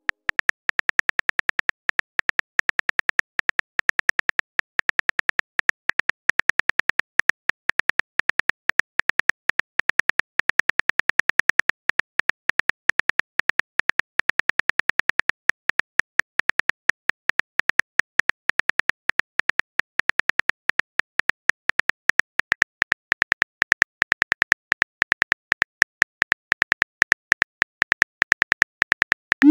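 Phone keyboard typing clicks from a texting-story app: a rapid, even series of short taps, one per letter as a message is typed out.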